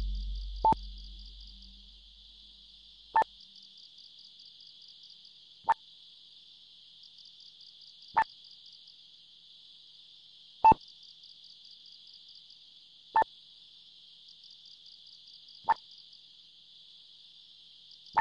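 A steady high insect trill, like crickets chirping, with a short pitched plink every two and a half seconds. A low drone fades out over the first two seconds.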